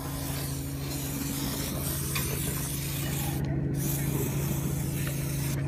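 Aerosol wound spray hissing onto an elephant calf's wound, with a short break about three and a half seconds in before it hisses again. A steady low hum runs underneath.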